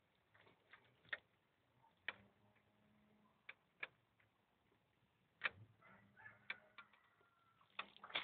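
Faint, scattered sharp clicks and light knocks: a metal-cased car audio unit and its wiring plugs being handled, about eight irregular clicks over several seconds.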